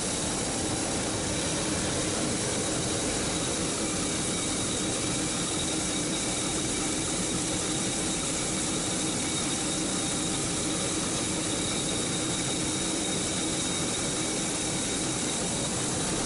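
Steady, even machinery hiss from a mobile grain-cleaning machine running while a wheel loader tips grain into its hopper, with a low engine running underneath.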